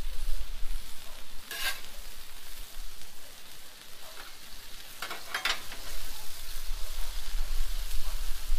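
Tenderized steak, sweet peppers and red onions sizzling steadily on a Blackstone flat-top griddle. Metal spatulas scrape against the steel plate twice, about a second and a half in and again around five seconds in.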